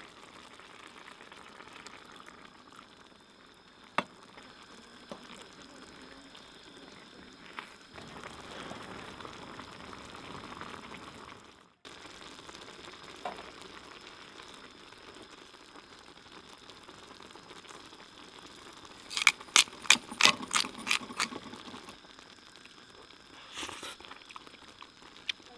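Vegetable risotto with butter simmering in a frying pan on a camp stove, a low steady bubbling hiss. About three-quarters through comes a quick run of sharp clicks.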